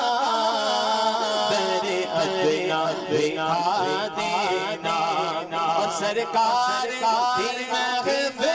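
Men singing a Punjabi naat without instruments into microphones: a lead voice in ornamented, wavering melodic lines over a steady held low note from the backing voices.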